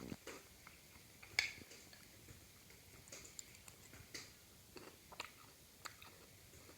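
Quiet, irregular small clicks and crunches close to the microphone, with one louder click about a second and a half in.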